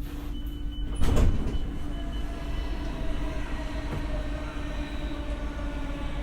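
Alstom Coradia Nordic X60 electric multiple unit running at speed, heard from inside the car: a steady traction hum over rumbling wheel-and-rail noise. A short loud thump comes about a second in.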